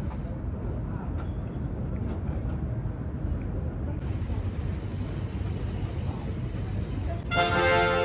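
Steady low outdoor rumble, then, about seven seconds in, a bright horn-like 'ta-da' sound effect sounds for about a second.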